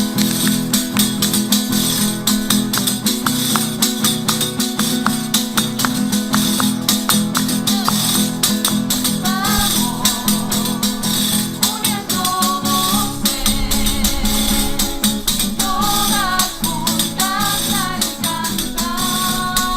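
A cueca folk band playing: strummed guitar and a pandero (tambourine) keeping a steady beat, with voices singing from about halfway in.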